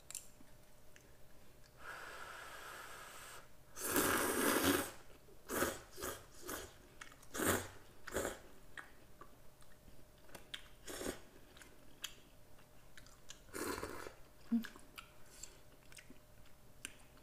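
Instant ramyeon noodles being slurped and chewed. The loudest, longest slurp comes about four seconds in, followed by a run of shorter slurps and chewing noises, with another slurp near the end.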